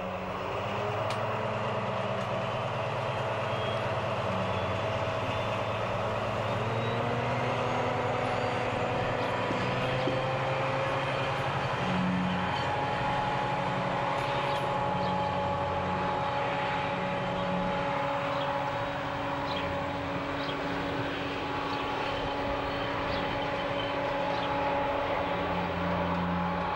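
DR V100-class diesel-hydraulic locomotive hauling a rake of passenger coaches away from a stop. Its engine runs steadily under load, and a whine rises in pitch several seconds in as the train gathers speed.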